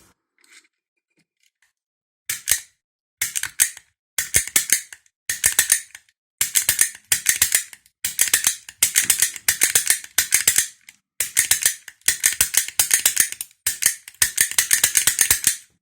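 Snap gun being fired into the keyway of a Brinks 40 mm padlock, its needle striking the pin stacks. About a dozen bursts of rapid, sharp metallic clicks, starting about two seconds in.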